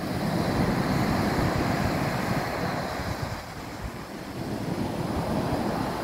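Storm surf breaking on a pebble beach: a steady rush of heavy waves, with wind on the microphone. It swells in the first half, eases briefly past the middle, then builds again.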